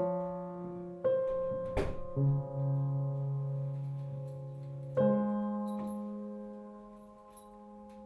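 Slow piano music: chords struck one after another, each left to ring and fade, with a deeper bass note coming in after about two seconds. A single sharp click or knock cuts through just before the two-second mark.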